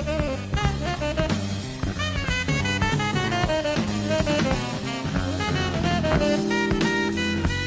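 Background music: a live jazz band playing an instrumental passage, with a horn line over drum kit and bass.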